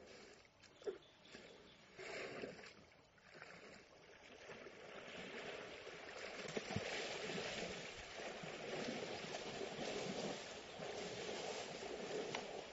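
Water splashing and sloshing as elephants bathe: a steady wash of splashing that grows louder from about four seconds in, with a few brief knocks.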